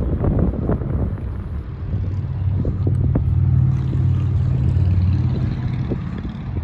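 Wind rumbling on the microphone, joined about two seconds in by the steady low hum of a motor vehicle's engine running, which eases off near the end.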